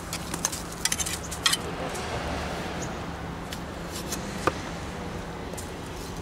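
Steel mason's trowel scraping and clinking against mortar and brick as broken brick pieces are packed into a patch. There are several sharp clicks in the first second and a half and one more about four and a half seconds in.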